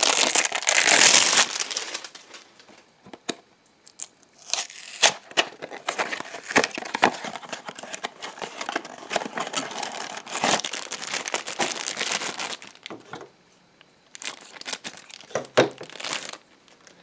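Blind-box toy packaging being opened by hand. Loud crinkling and tearing of the wrapping for the first two seconds, then on-and-off crinkling and rustling with small clicks until near the end.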